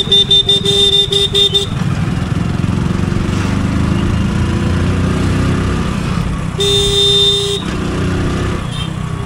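Motorcycle running through traffic with a steady low engine and road rumble. A vehicle horn gives a quick series of short toots in the first second and a half, then one long toot about seven seconds in.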